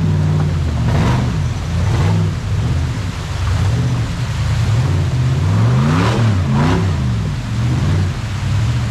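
Off-road rock buggy engine revving up and down again and again while crawling, the pitch rising and falling every second or so.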